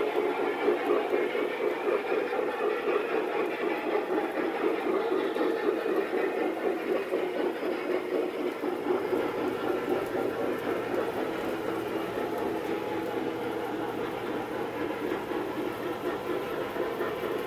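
Long string of O-gauge coal hopper cars rolling on three-rail model train track: a steady clattering rumble of many small metal wheels on the rails, easing off slightly in the second half.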